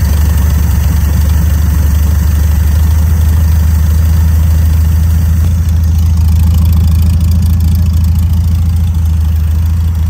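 A 1972 Volkswagen Beetle's air-cooled flat-four engine idling steadily. It runs smoothly with no misfire, now that a loose number one spark plug, a loose electronic-ignition wire and the spark plug gaps have been put right.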